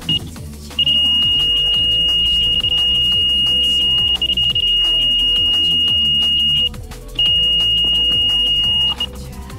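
Electronic carp bite alarm sounding one continuous high tone, the sign of a run as a fish takes the bait and pulls line off the reel; it breaks off briefly about two-thirds of the way through and stops shortly before the end. Electronic music plays underneath.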